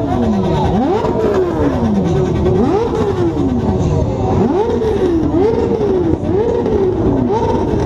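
Motorcycle engines being revved again and again, each rev climbing quickly in pitch and falling back, about one a second, with several engines overlapping.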